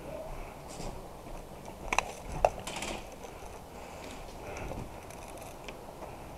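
A person walking on sandy ground with gear and a rifle rattling and rustling. There are two sharp clicks about two seconds in, half a second apart.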